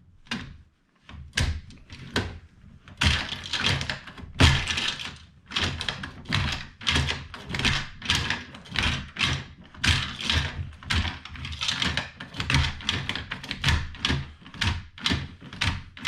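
Mag Pump magazine loader being cycled, pushing 9mm rounds one after another into a double-stack pistol magazine: a steady run of clacks, about two a second.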